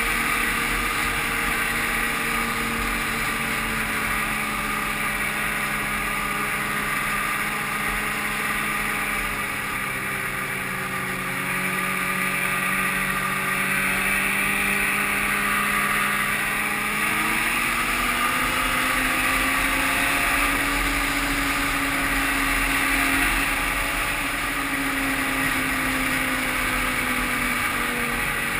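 1995 Ski-Doo Grand Touring's two-stroke engine running steadily at cruising speed, heard from the rider's seat over a steady rush of noise. The engine note eases off about a third of the way in and climbs again a little past halfway.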